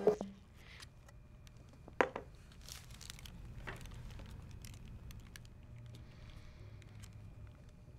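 Music stops abruptly at the start. What follows is quiet room tone with a low steady hum and a few faint clicks and rustles, the sharpest click about two seconds in.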